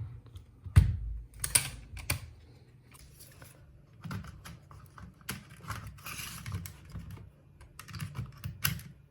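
Irregular plastic clicks and knocks from a laptop being handled and worked on, with a heavy knock about a second in and a scraping rustle around six seconds.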